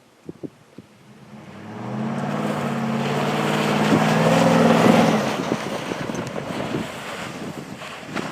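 Pickup truck engine running hard while driving in snow, with a hiss over it. It grows louder for a few seconds, then drops away about five seconds in.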